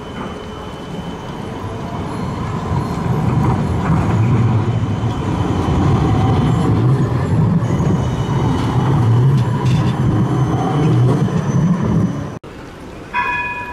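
Siemens Combino tram running past, a low rumble of wheels on rail that grows louder and holds, then cuts off abruptly about twelve seconds in. A brief high pitched tone follows near the end.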